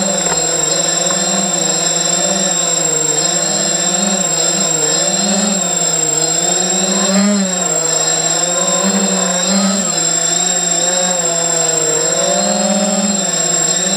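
ZMR 250 quadcopter's brushless motors and propellers whining, picked up by the onboard camera, the pitch rising and falling as the throttle changes, with a steady high tone over it.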